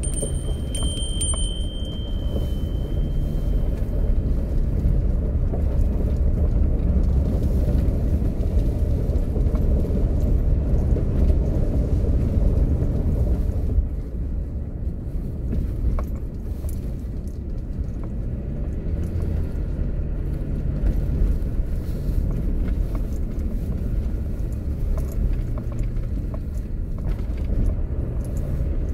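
Kia Mohave SUV driving slowly on a gravel forest road, heard from inside the cabin: a steady low rumble of engine and tyres on the loose surface. A thin high tone rings near the start and fades out within a few seconds.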